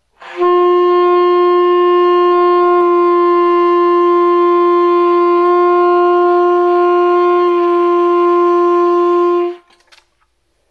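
Alto saxophone holding one long note of about nine seconds: written fourth-line D, sounding concert F, which is naturally sharp on the instrument. It is played first with the plain fingering and then with the low B key added to pull the pitch down toward in tune, the tone shifting slightly a few times along the note.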